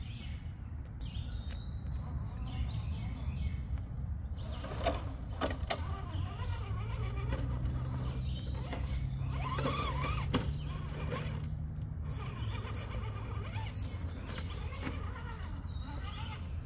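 A radio-controlled scale rock crawler's electric motor and geared drivetrain whir as it climbs over rock, louder for a few seconds in the middle. Its tyres and chassis knock on the stone a few times. Birds chirp now and then.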